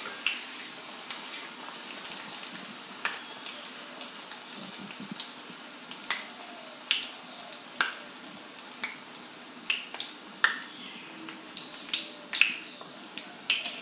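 Besan sev deep-frying in hot refined oil in a kadhai over low heat: a steady sizzle with sharp pops and clicks scattered irregularly through it.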